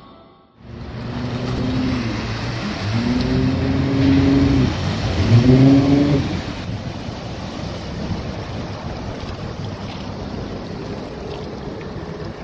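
Bavaria S36 HT motor cruiser under way close by: its engine note rises and falls in pitch twice in the first half, over a steady rush of water and wake.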